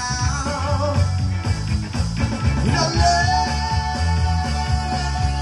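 Live band playing a rock song, with a man singing over keyboard, strong bass and a steady beat; a long note is held from about halfway through.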